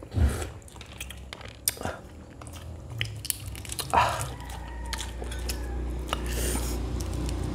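Balut eggs being peeled and eaten up close: small crackles of shell broken by fingers and a spoon, and chewing, with a few sharper clicks about a second apart and two louder ones near the start and about four seconds in.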